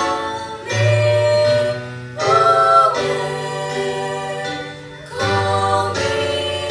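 A vocal trio singing a gospel song in harmony over guitar accompaniment, with long held notes and new phrases starting about a second in, two seconds in and five seconds in.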